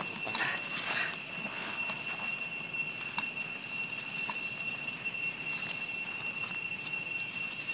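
Steady, high-pitched insect chorus holding two constant tones, with a few faint ticks over it.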